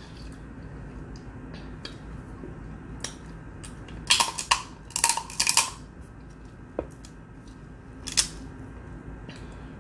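Close-up eating sounds of a person biting and chewing a boiled shrimp, with a run of loud, sharp mouth smacks and crunches about four to six seconds in and another near eight seconds.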